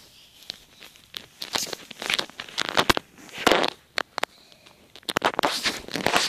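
European hedgehog huffing and snorting in short breathy bursts, mixed with sharp clicking pops: the defensive warning noises of an agitated hedgehog.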